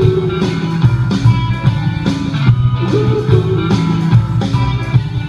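Blues backing music with a repeating electric guitar riff over a steady beat, between sung lines.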